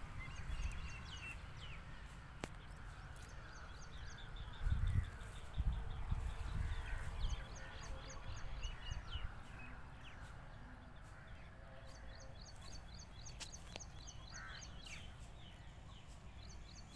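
Small birds chirping in quick repeated series of short high notes, with other scattered bird calls, over a low rumble of wind on the microphone that is loudest about five to seven seconds in.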